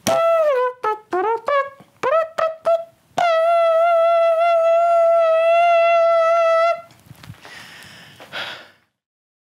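A trumpet-like fanfare: a quick run of about ten short notes, each dipping in pitch, then one long held note of about three and a half seconds that cuts off. It ends with fainter noise and then silence.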